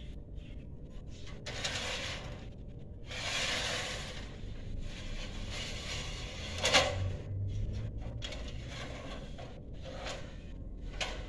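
Scraping sounds in bursts of about a second each, with a sharp clack about two-thirds of the way through and a few lighter knocks near the end.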